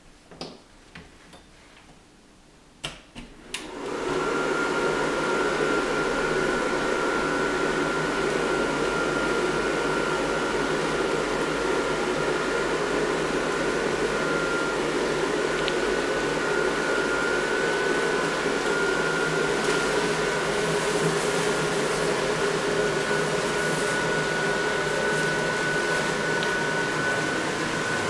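Electric blower fan of a Halloween inflatable switching on after a few clicks, about three and a half seconds in, then running steadily with a thin high whine as it inflates the decoration.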